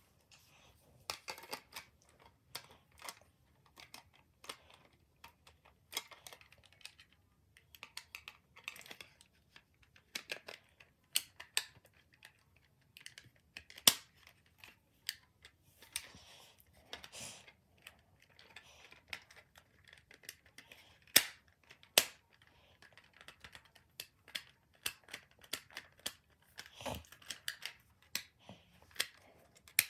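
Hand-handling of small plastic toy parts: irregular clicks, taps and short scrapes as a toy's wing pack is fitted back together, with a few sharper snaps standing out.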